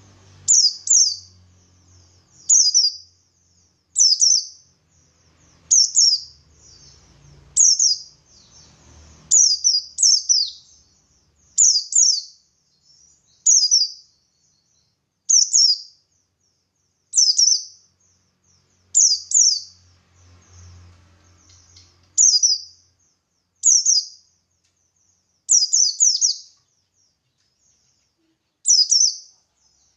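Buxtoni white-eye (pleci) calling in wild style: short, sharp, high chirps repeated every second and a half to two seconds, some in quick pairs.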